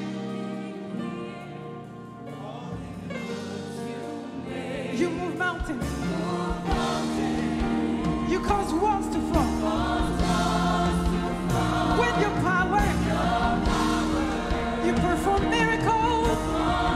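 Live gospel worship music: a woman sings lead with backing singers over keyboard chords from a Yamaha Motif XS7 synthesizer. Bass guitar and drums come in about five seconds in, and the music builds and gets louder.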